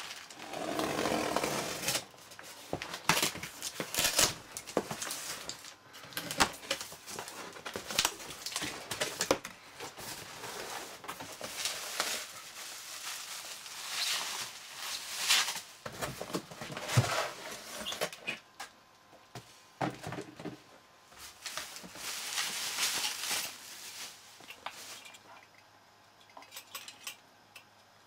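Packing paper and bubble wrap rustling and crinkling in irregular bursts, with small clicks and knocks of hardware being handled.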